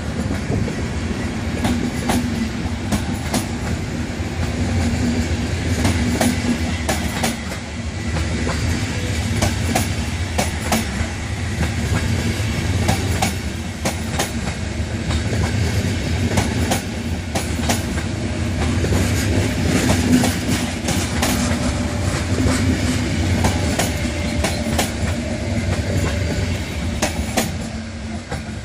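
Intercity passenger coaches rolling past on a departing train: a steady low rumble with wheels clacking over rail joints. It fades near the end as the last coach draws away.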